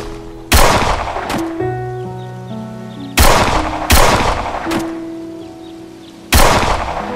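Loud semi-automatic pistol shots fired one at a time at a range target: about six shots, four strong and two weaker, each with a short ringing tail, spaced roughly half a second to a few seconds apart.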